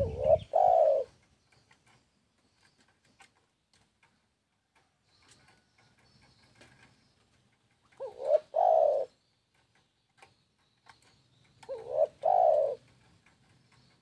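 Spotted dove (tekukur) cooing: three phrases about four seconds apart, each a short note followed by a longer one.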